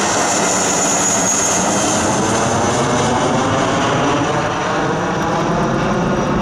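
Twin-engine Airbus A320-family jet airliner passing overhead and climbing away: a loud, steady jet engine roar with a high hiss that fades over the first few seconds, easing slightly in the second half as the aircraft recedes.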